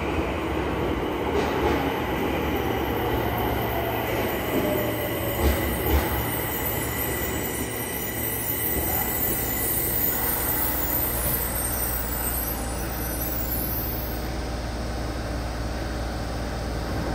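Yokohama Municipal Subway Blue Line train with a Mitsubishi hybrid SiC-VVVF inverter pulling into an underground station platform and slowing to a stop. Steady rumble of wheels on rail, with a falling whine in the first few seconds as it slows and a couple of sharp knocks about six seconds in.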